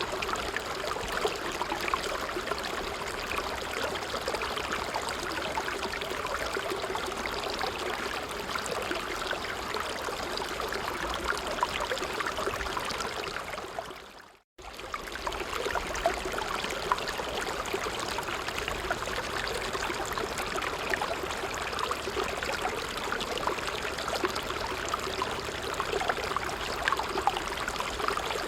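A small stream running steadily, with many small trickles and splashes. About halfway through it fades out over a second or so, then cuts straight back in.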